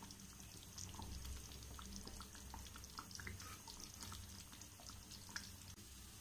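Thick lentil-dumpling curry simmering in a pan, faint and irregular small bubbling pops, while a wooden spatula is drawn gently through it.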